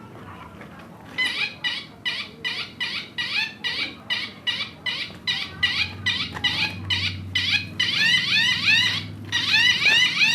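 Bicycle telolet horn sounding a fast run of high, shrill toots, about four a second, starting about a second in. From about eight seconds in the toots turn into quick rising chirps.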